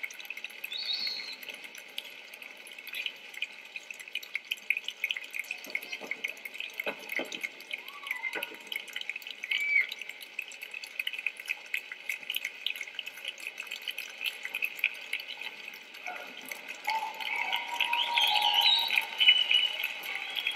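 Theatre audience applauding steadily, with a few cheers over the top; the applause grows louder near the end.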